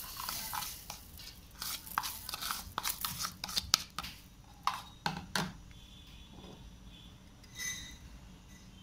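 Granulated sugar sliding out of a plastic cup into a stainless-steel mixer jar of watermelon chunks, then a plastic spoon scraping and tapping against the cup and jar in a quick run of sharp clicks. A single faint ringing tap comes near the end.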